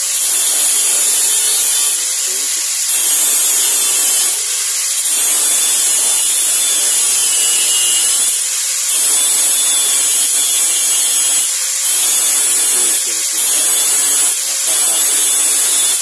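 Electric angle grinder with a cut-off disc cutting through the thin steel cylinder of an old hand-operated corn and bean planter. The cut runs continuously, swelling and easing every second or two as the disc bites into the metal and lets up.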